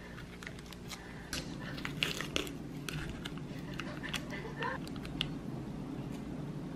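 Irregular small clicks and knocks, several a second and thickest in the middle, over a steady low hum.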